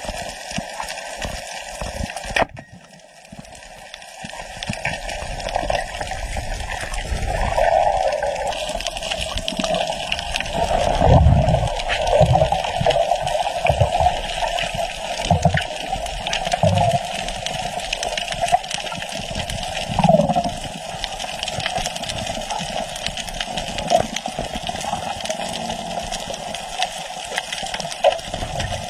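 Underwater sound picked up by a camera in the sea: a steady muffled rush of water with scattered low thumps and gurgles. The sound drops out briefly about two and a half seconds in.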